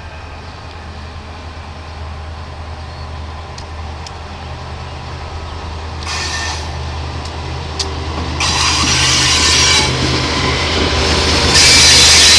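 Diesel freight locomotives led by a GE C40-8W draw nearer. Their engines are a low steady drone that grows steadily louder. In the last few seconds a loud rushing noise builds as the lead unit comes alongside.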